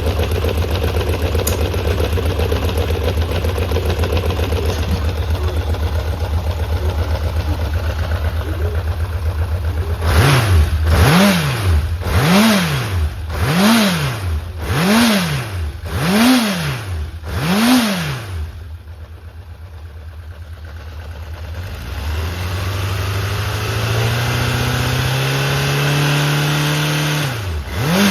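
Honda CB750F (RC04) air-cooled inline-four engine idling steadily, then blipped six times, about one blip a second, each rev rising and falling. It drops quieter for a few seconds, then picks up into a slowly rising held rev, with another blip starting at the end. The seller describes it as running strongly with high compression and no abnormal noise.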